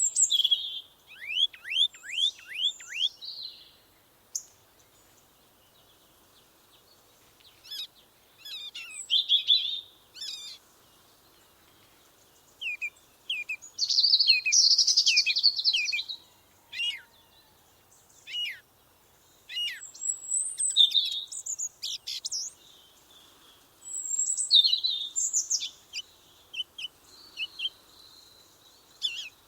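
Songbirds chirping and singing: bursts of high chirps, trills and quick downward-sweeping notes, broken by short pauses.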